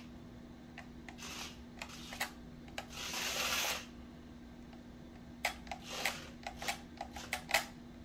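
Small battery-powered remote-control stunt car spinning on a laminate floor: a whir of its motors and tyres for about a second, about three seconds in, then a quick run of light clicks and taps, over a steady low hum.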